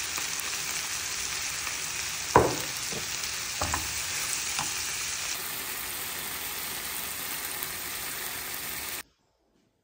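Diced onion, tomato and pepper sizzling steadily in a frying pan, with a few sharp knocks of a utensil against the pan, the loudest about two and a half seconds in. The sizzling cuts off suddenly near the end.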